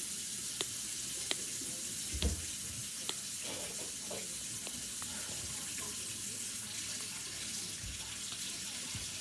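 A few soft pops from the bubbles of a silicone pop-it fidget toy being pressed, over a steady hiss that sounds like running water.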